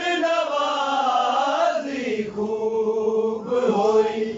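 Men's voices chanting a Punjabi noha, a Shia lament, unaccompanied, drawing out long held notes that bend in pitch.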